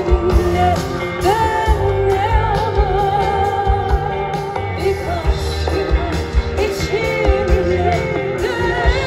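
Live band music with a woman singing a Turkish pop song over guitar, bass and a steady drum beat.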